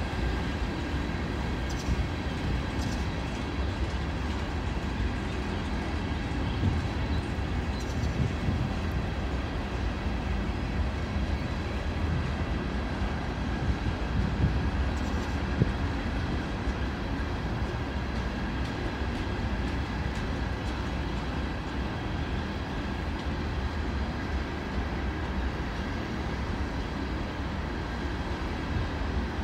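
Norfolk Southern freight train's covered hopper cars rolling past: a steady rumble of steel wheels on rail, with a faint steady high tone above it and a few sharp clicks in the first several seconds.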